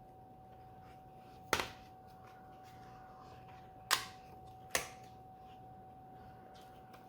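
Three sharp clicks, the first about a second and a half in and the other two close together near four and five seconds, over a steady faint tone.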